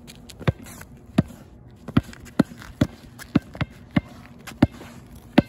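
Basketball dribbled on asphalt: about ten sharp bounces at an uneven pace, roughly two a second.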